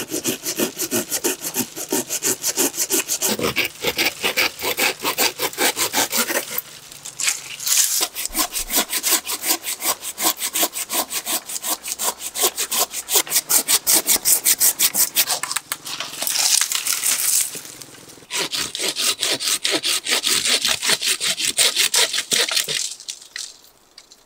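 Hand saw cutting through a tree branch in quick, even back-and-forth strokes. The strokes come in long runs with a few short pauses and stop near the end.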